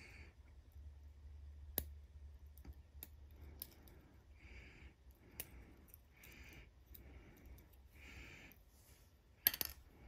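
Faint small metal clicks as the steel discs and spacers of a disc detainer padlock are handled and set down in an aluminium parts tray. There is one sharp click about two seconds in and a louder little clatter near the end, with soft breathing between.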